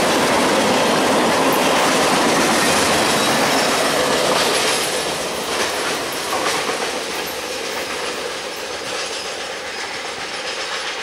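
Freight train's cars rolling past on the rails: a loud steady wheel rumble and clatter, with a few sharp clanks about halfway through, then fading as the end of the train moves away.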